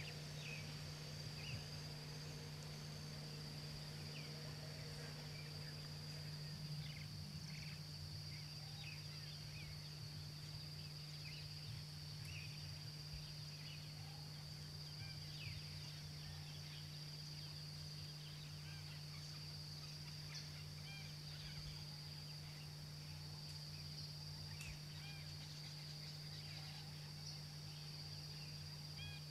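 Tropical forest ambience: a steady high-pitched insect drone with many short bird chirps scattered through it, over a steady low hum.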